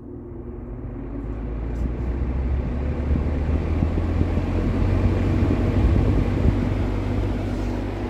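Late-1950s Sears Homart 20-inch box fan (model 480-9360-6) starting up on high speed. The rush of air from its spinning blades grows steadily louder and brighter as the motor comes up to speed, then levels off at full speed over the last few seconds.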